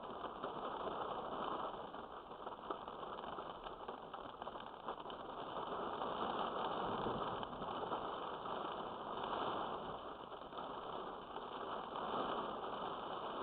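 Heavy rain pouring down, a steady rushing hiss that swells and eases.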